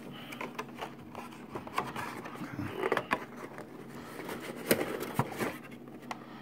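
Packaging being handled: a clear plastic sleeve slid off a cardboard earphone box and the plastic tray inside shifted. It gives irregular scrapes and rustles with a few sharp clicks, the sharpest a little under 5 seconds in.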